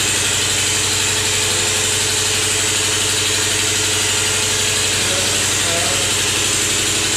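Steady low hum with a constant hiss, level and unchanging throughout.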